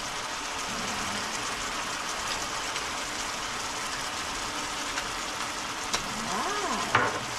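Chicken adobo in soy-sauce liquid simmering and sizzling steadily in a frying pan. A few light clicks and a short wavering tone come near the end.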